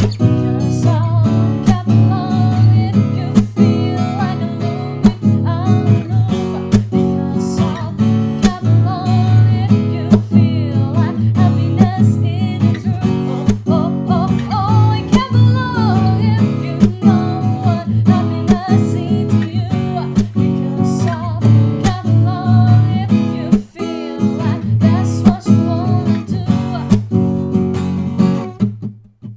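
Sqoe S200-FG acoustic guitar, with a solid cedar top and black walnut back and sides, strummed in a steady rhythm through a song, stopping right at the end.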